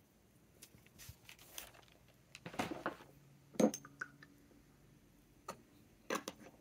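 Light clicks, taps and rustles of glass and plastic being handled on a desk, as a glass water jar is moved and the plastic cap is fitted onto a glass ink bottle. The sharpest knock comes a little over halfway, with a cluster of clicks near the end.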